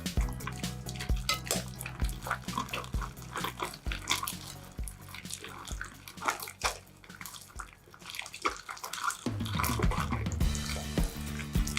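Wet, sticky crackling and clicking of slime being squeezed and stretched, over soft background music.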